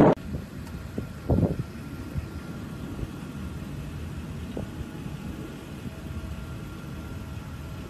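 Distant jet airliner engines heard across an airfield: a faint steady rumble with a thin whine, and a brief louder rush of noise about a second and a half in.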